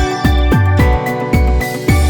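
Background music with a steady beat: a deep kick drum that drops in pitch on each hit, about two beats a second, under sustained synth tones.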